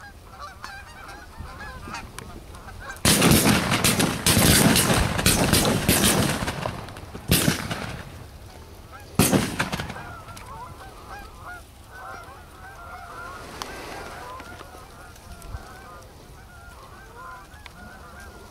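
A flock of geese honking steadily overhead. About three seconds in comes a rapid string of shotgun blasts lasting some four seconds, then two more single shots about two seconds apart. The honking carries on after the shooting.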